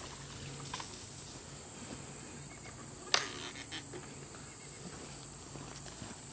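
Quiet outdoor background with a faint steady low hum and a thin steady high whine, broken once by a single sharp click about three seconds in.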